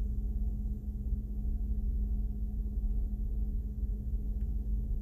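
Steady low background hum with a constant low tone running through it.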